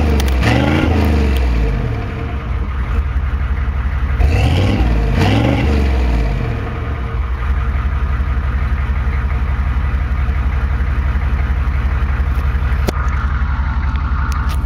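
Exhaust of a 1992 Chevy's 6.2L V8 diesel, running through a 3-inch pipe, a Flowmaster 40 muffler and a 4-inch tailpipe. The engine is revved up and back down twice at the start and twice more about four seconds in, then settles into a steady idle.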